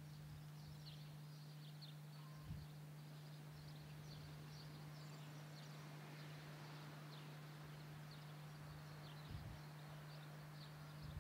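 Faint outdoor ambience of small birds chirping, with many short high chirps scattered throughout, over a steady low hum.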